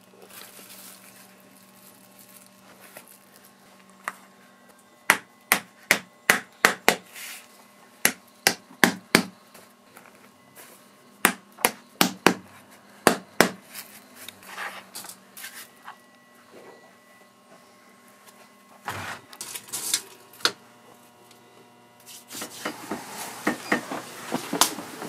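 Small cobbler's hammer tapping the edge of an insole down onto a plastic shoe last. The sharp strikes come in quick runs of several, about two or three a second, with short pauses between runs.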